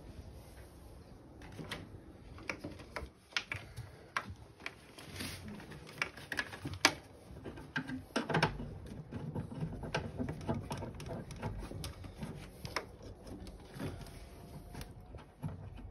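Hands feeding and handling wires through the holes of a van's sheet-metal rear door frame: scattered small clicks, taps and rustles, irregular in rhythm, the loudest about seven and eight and a half seconds in.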